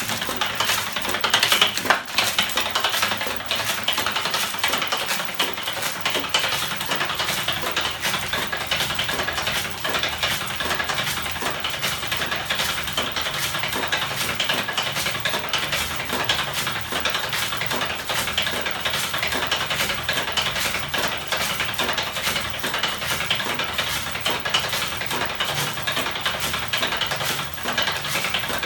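Homemade battery-and-electric-motor driven electromagnetic flapping-wing machine running, its swinging aluminium frame and linkages making a fast, steady clatter of rapid clicks.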